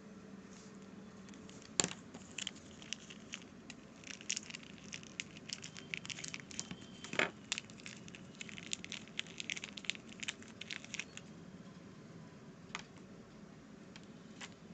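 Plastic packaging crinkling and crackling while a USB cable and charger are handled and unwrapped, in a run of quick rustles with two sharper snaps. It goes quiet for the last few seconds.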